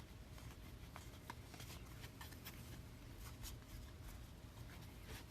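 Faint rustling and light clicks of trading cards being handled and slid against one another, over a low steady room hum.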